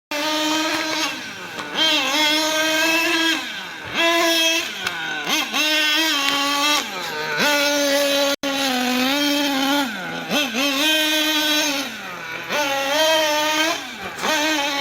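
An engine revved over and over: each time the revs climb quickly, hold steady for a second or two, then fall away slowly before the next rise.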